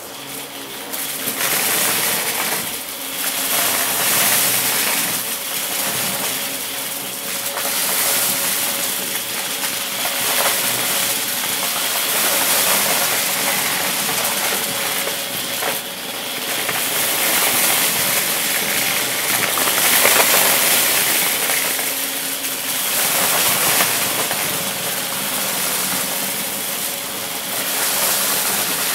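Dyson ball upright vacuum running and sucking up a pile of crunchy, glittery debris. A steady motor hum sits under a rattling, crackling rush of bits going up the hose, which swells and dips with each push and pull.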